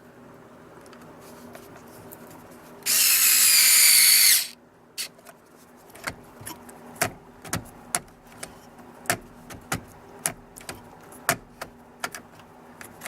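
A power screwdriver whirs for about a second and a half, driving the small screw that holds the new turn signal switch, then a run of light, irregular clicks and taps.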